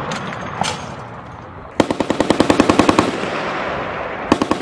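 M2 .50-calibre heavy machine gun firing: a couple of single cracks, then a burst of about a second at roughly ten shots a second that echoes away, and a second burst starting near the end.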